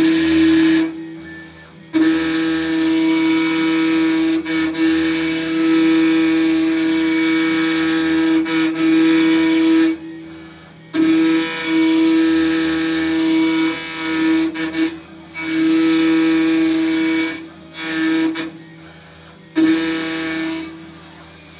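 TS-30 CNC router spindle whining steadily, with a harsh hiss as the cutter engraves acrylic on its second pass, 1 mm deep. The sound drops away for about a second a few times: about two seconds in, near the middle and twice near the end.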